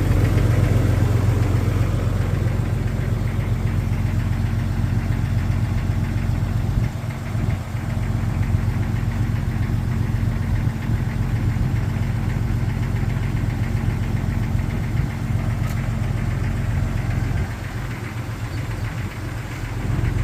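Jeep Cherokee XJ engine idling after a cold start, with a steady knocking rattle taken for piston slap. The sound softens briefly about seven seconds in and again for the last few seconds.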